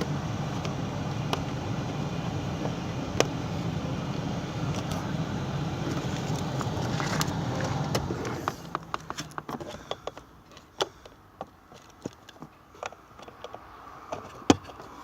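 A steady car hum stops a little past halfway. Scattered plastic clicks and taps follow as the cabin air filter cover behind the glove box of a Skoda Superb is handled, with one sharp knock near the end.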